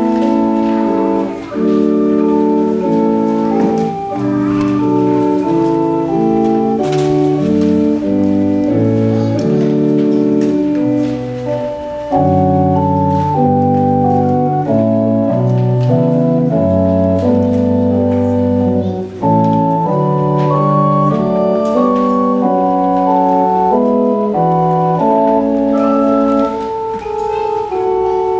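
Church organ playing a slow, sustained chordal piece, the held chords changing every second or so with a deep bass line underneath.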